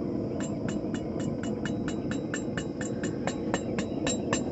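Hammer tapping a hot 1/4-inch rod at the forge in a steady rhythm of about four light blows a second, over a constant rushing background noise.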